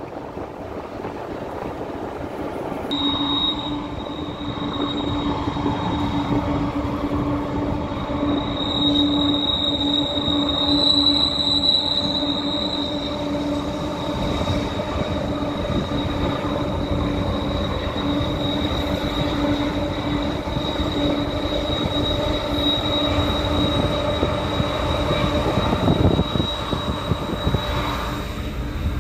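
Train rolling on the rails, its wheels giving a steady high-pitched squeal that starts about three seconds in, heard from a moving car with the window open over road and wind rumble.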